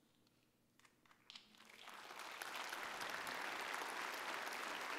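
Audience applause: after a brief hush, a few scattered claps come about a second in, then the clapping swells into steady applause from about two seconds in.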